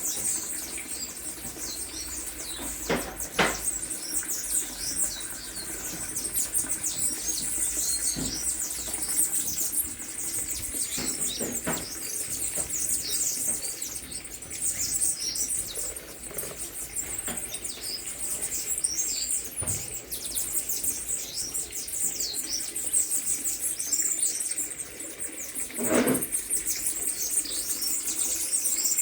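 Many birds chirping at once in a dense, high-pitched chorus, with a few soft knocks about 3 s in, about 11 s in and near the end.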